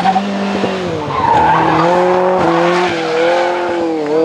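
Ferrari 308 GTB rally car's 2.9-litre 90° V8 engine running hard through a bend, with a short burst of tyre squeal about a second in.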